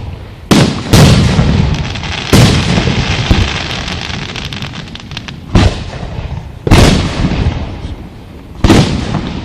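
Aerial fireworks shells bursting overhead: six or seven sharp booms, each trailing off in a long echoing rumble, with crackling between the bursts.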